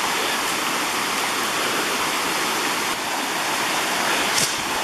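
Hillside stream rushing over rocks as it pours out of two large culverts: a steady rush of water.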